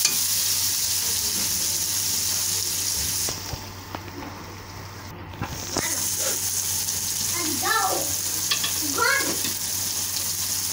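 Chicken, egg and tomato mixture frying and sizzling in a karahi on a gas burner while being stirred with a spatula. The sizzle drops away for a couple of seconds in the middle, then returns with a few light scrapes and clicks.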